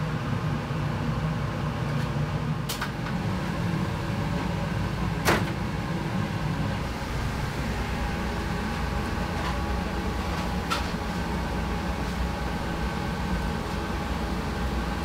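Kitchen background: a steady low mechanical hum with a few sharp knocks or clanks, the loudest about five seconds in.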